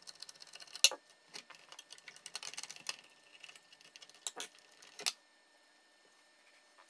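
Scattered small metallic clicks and clinks of a screwdriver and loose metal parts being handled while a paper shredder's cutter and gearbox assembly is taken apart by hand, with one sharper click about a second in.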